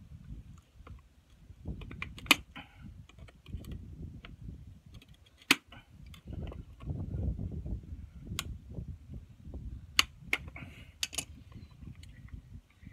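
Tongue-and-groove pliers and a pool backwash valve's plunger rod being worked to free a stuck cotter pin: about six sharp clicks spread out, over low scuffing and handling noise.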